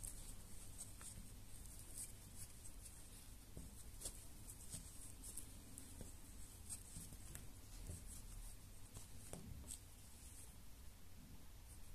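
Faint, irregular scratching and rustling of a steel crochet hook and yarn being worked through the edge of a felt sole, as popcorn stitches are built up stitch by stitch.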